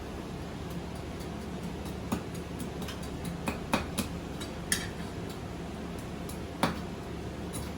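Hand tools working a wooden spoon blank: a handful of short, sharp clicks and knocks at irregular intervals, over a steady background hum.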